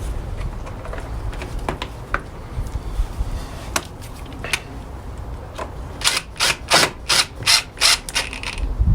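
Ratcheting clicks from a hand tool working a fastener: a few separate clicks, then a quick run of about eight short rasps near the end.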